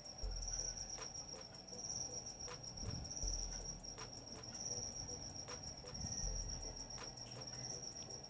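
A cricket trilling steadily at a high pitch, its trill swelling and fading every half second or so, over the soft sizzle of oil deep-frying sweet potato cakes in a wok.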